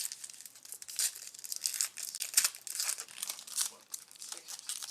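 Trading cards and their foil pack wrappers being handled: repeated short crinkling and rustling.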